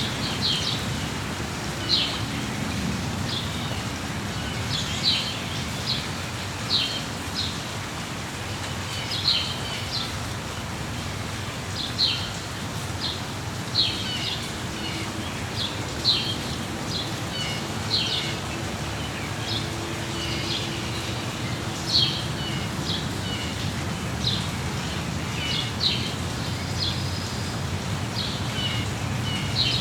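Songbirds chirping in short, sharp calls, one every second or two, over a steady hiss of falling rain.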